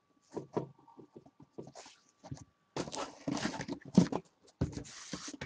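Hands handling trading card boxes inside a cardboard shipping box: irregular light taps, scrapes and rustles, sparse at first and busier from about halfway.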